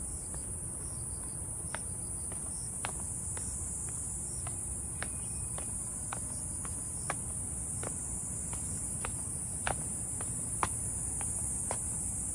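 Steady high-pitched insect chorus, with irregular sharp clicks and taps of footsteps on the trail.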